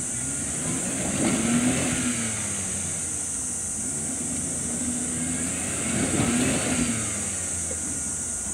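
Suzuki Carry kei truck's small engine running and revving in two surges, one about a second in and another about six seconds in, with the pitch rising and falling between them.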